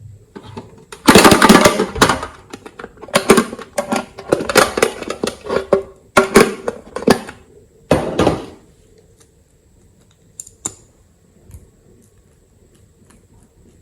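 Slime being squished and kneaded by hand: bursts of sticky crackling and clicking for about eight seconds, then only a few scattered clicks.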